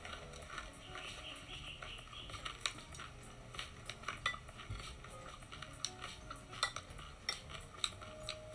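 A metal spoon and fork clinking and scraping against a glass bowl while scooping rice: a string of light, irregular clicks that grows busier after the first couple of seconds.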